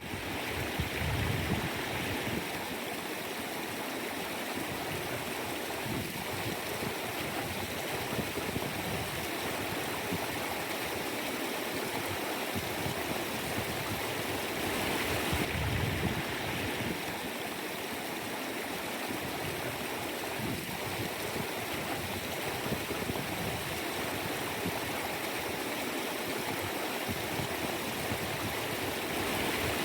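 Mountain stream running steadily over rocks: continuous rushing and gurgling water, with occasional low swells.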